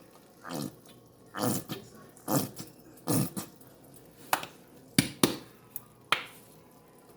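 A nearly empty plastic ketchup squeeze bottle being squeezed, sputtering out air and sauce in a series of short spurts, about eight of them at uneven intervals.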